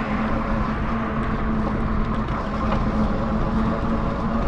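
Lectric XP e-bike riding along a sidewalk: a steady hum over a constant low rumble of wind and tyre noise on the microphone.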